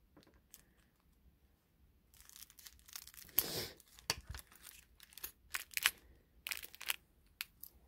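Small clear plastic bags crinkling and tearing as one is cut open with scissors and handled, in a string of short rustles that begins about two seconds in.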